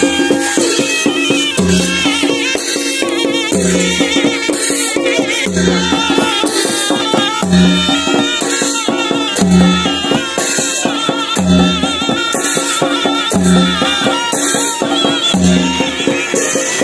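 Traditional Limbu drum music: chyabrung barrel drums beating a steady rhythm with a deep stroke about once a second, bright clashes about every two seconds, and a wavering melodic line above.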